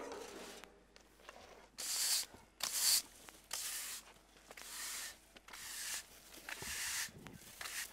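A long-handled garden tool scraping and scratching over dry ground and grass in repeated strokes, about one a second.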